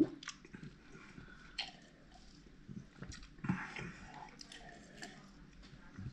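Close mouth sounds of a man chewing and trying to swallow a mouthful of Kinder egg chocolate, with a sip of water from a plastic shaker bottle about three and a half seconds in. A sharp knock comes right at the start.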